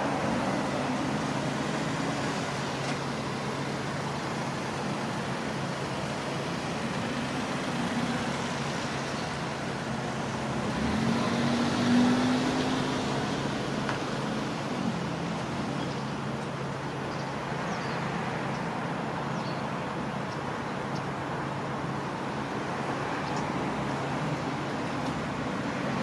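Steady road traffic rumble, with one vehicle passing louder about eleven to thirteen seconds in. A few faint short high chirps, the calls of white wagtails flying in to roost, come through the traffic near the middle.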